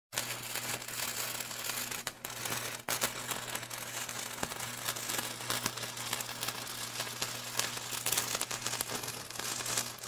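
Electric sparks crackling continuously with many sharp snaps, over a steady low electrical hum, with brief breaks about two and three seconds in.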